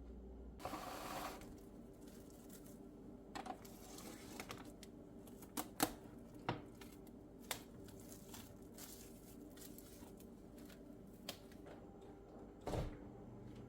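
Kitchen handling sounds: a brief rustle about a second in, then scattered clicks and light knocks of containers and lids being moved and closed, over a low steady hum.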